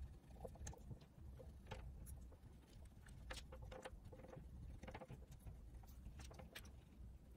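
Faint scratching of a wax crayon colouring on paper in short, irregular strokes.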